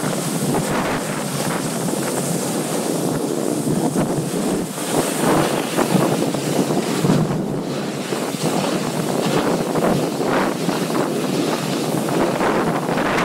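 Wind buffeting an action camera's microphone during a fast slide down a groomed snow slope, a steady loud rush with irregular swells, over the scrape of sliding on hard-packed snow.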